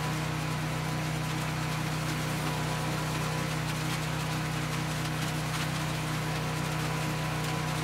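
Cast iron Kohler K341 16 hp single-cylinder engine of an Allis Chalmers 416 garden tractor running steadily, driving the composter attachment as dry leaves are fed in and shredded.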